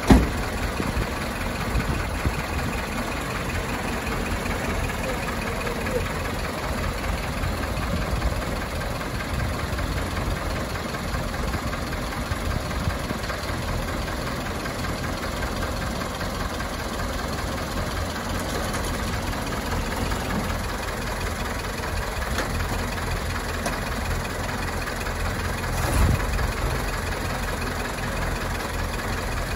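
1923 Leyland SG7 bus's petrol engine idling steadily, with one brief louder thud near the end.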